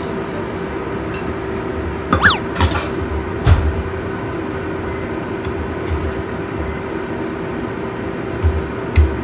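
A steady mechanical hum from the kitchen, with a few sharp knocks and a ringing metallic clink a couple of seconds in. Near the end a wooden spatula knocks and scrapes in a nonstick wok, stirring choy sum simmering in a little liquid.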